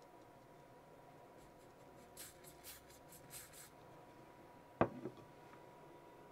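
A few short hissing sprays from an aerosol can of CA glue accelerator onto fresh super glue on a rubber tire, setting the glue's surface. Then a sharp knock, the loudest sound, with a smaller one after it, as the can is set down on a wooden table.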